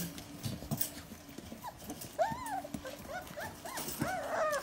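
Puppies whining and yelping: many short, high cries that rise and fall in pitch, coming thick and overlapping towards the end, with light clicks in between.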